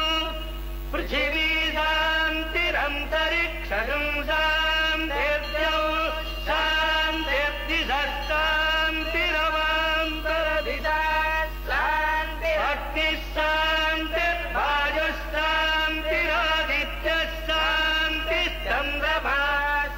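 Male voice chanting Sanskrit Vedic mantras in a steady, syllable-by-syllable recitation, with a steady low hum underneath.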